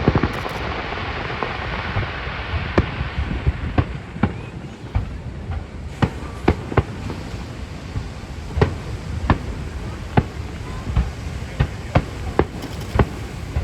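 Aerial firework shells bursting one after another, sharp bangs over a low rumble. A hissing crackle fades out over the first few seconds.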